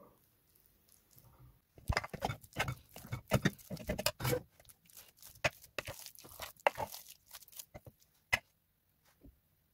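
Boiled chana dal being mashed in a pot: a run of irregular soft squelching thuds and knocks starting about two seconds in, ending with one sharp click.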